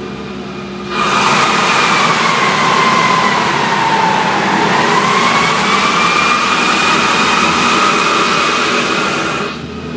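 Diesel-electric mining haul truck's electric (dynamic) retarding brakes working, heard from the cab: a loud rush of air with a whine that sinks in pitch and climbs back. It comes on about a second in and drops off just before the end.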